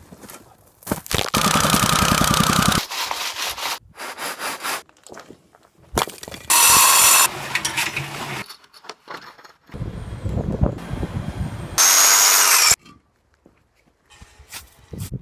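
Building-work tool noise in several separate bursts of a second or two each, cutting and scraping sounds that start and stop abruptly, with quiet gaps between.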